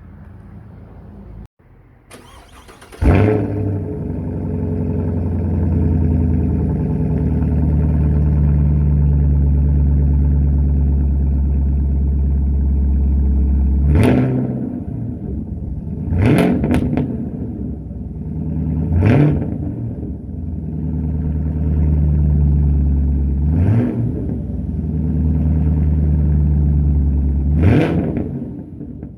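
Camaro SS's 6.2-litre V8 started about three seconds in with a loud flare, then idling with a deep, even burble through its exhaust. From about the middle it is blipped through roughly six short revs, each rising and dropping back to idle.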